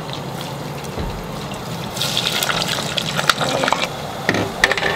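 Bagged fries going into a deep fryer: the hot oil bubbles and sizzles hard, with dense crackling from about two seconds in.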